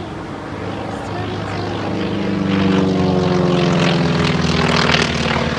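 Propeller airplane flying past, its engine growing louder about two seconds in and its pitch falling slightly as it passes.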